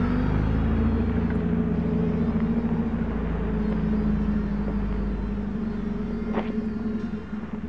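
Rover P6 saloon's engine and exhaust, loud because the rear silencer (back box) is blown, driving off and getting fainter near the end. A brief click about six seconds in.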